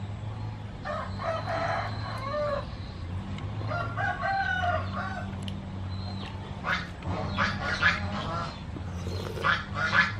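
Rooster crowing twice, each crow a long pitched call of about a second and a half, followed by a run of shorter clucks and calls from chickens. A steady low hum runs underneath.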